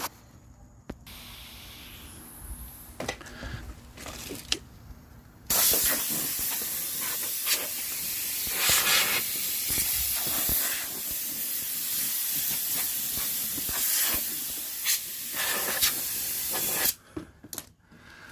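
Compressed air hissing from a blow gun as debris is blown off a lawn mower's deck. It starts about five seconds in, after a few faint knocks, runs for about eleven seconds with its level wavering, and cuts off sharply.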